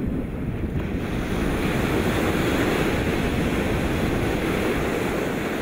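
A steady rushing noise with no tone or beat, swelling a little and starting to fade near the end.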